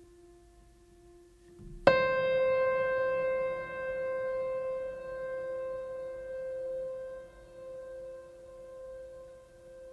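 Ambient background music: faint held tones, then about two seconds in a single struck piano note that rings on and slowly fades.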